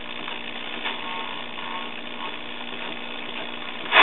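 1966 Hallicrafters S-200 shortwave receiver being tuned between stations: steady hiss of band noise from its speaker, with faint whistles and light crackles. Right at the end a station comes in much louder.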